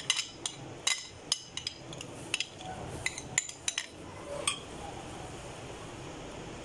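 Metal spoon clinking and scraping against glass as grated cheese is scooped out of a glass bowl into a glass baking dish. There are about a dozen irregular sharp clinks over the first four and a half seconds, then it goes quiet.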